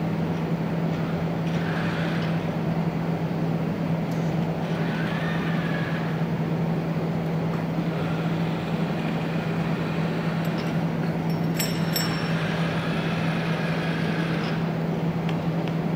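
Steady low machine hum and noise, over which a Rethink Robotics Baxter robot's arm joints whine faintly now and then as the arm moves a part. A couple of sharp clicks come about three quarters of the way through, as the part is set down and released.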